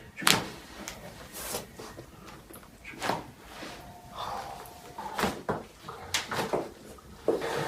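A chiropractic adjustment: several sharp cracks and knocks from joints popping and hands and the treatment table shifting under the patient. The loudest crack comes about a third of a second in, and breathing is heard between them.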